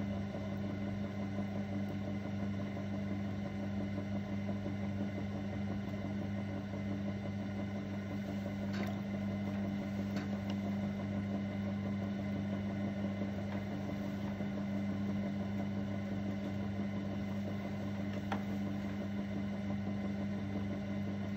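Electric potter's wheel running at a steady speed: a constant low hum from its motor, with a few faint ticks.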